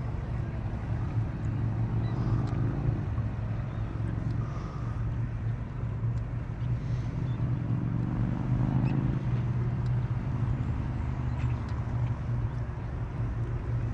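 Kayak's drive running with a steady low hum as the kayak moves along trolling.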